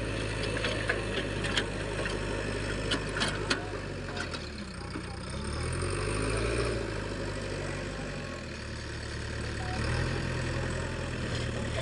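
JCB 3DX backhoe loader's diesel engine running under work, its pitch rising and falling as the throttle changes, with sharp metallic clicks and knocks in the first few seconds.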